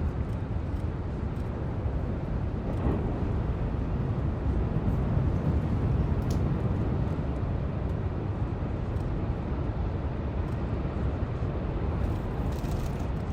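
Steady low roar of heavy Atlantic surf, swelling slightly about five seconds in.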